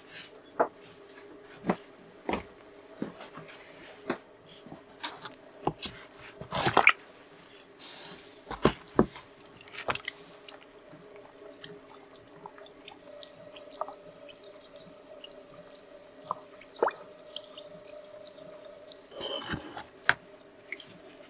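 Whetstones being put into a plastic tub of water to soak: sharp knocks and splashes of the stones going into the water, then a steady fizzing hiss of air bubbles escaping the soaking stones, and water sloshing and dripping as a stone is lifted out near the end.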